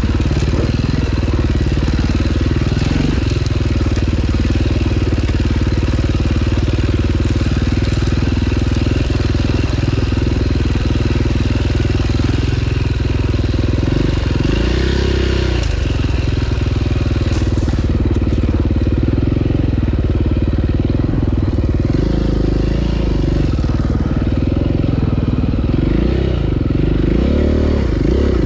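2009 KTM 530 EXC's single-cylinder four-stroke engine running steadily while riding. The revs rise and fall briefly a few times, around the middle and again near the end.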